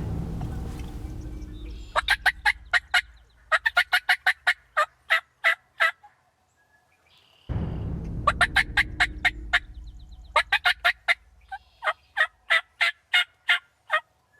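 A shotgun shot at a wild turkey, a sudden low blast that dies away over a couple of seconds, followed by a rapid run of sharp, repeated turkey calls from the missed bird. The same shot-and-calls sequence comes again about halfway through.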